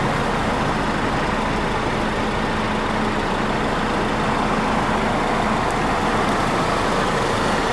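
Steady background road-traffic noise with a faint, steady low hum, unchanging in level.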